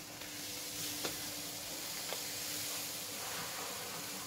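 Raw cane sugar poured from a plastic bag into a bowl of orange juice: a steady soft hiss of falling grains, with a couple of light ticks about one and two seconds in.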